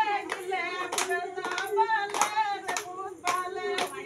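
Women singing together in a high, wavering melody, with sharp percussive beats about three a second.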